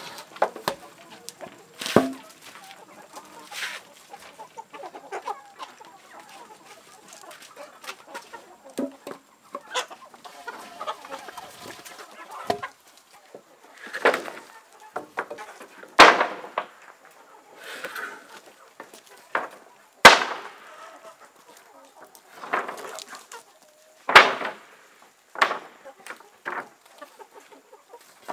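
Chickens clucking, with wooden planks and boards knocking and clattering as they are handled and lifted from a pile. There are a dozen or so sharp wooden knocks, the loudest in the second half.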